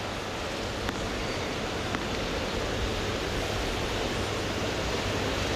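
Steady hiss of a quiet indoor tennis arena crowd between points, with two faint ticks about a second apart.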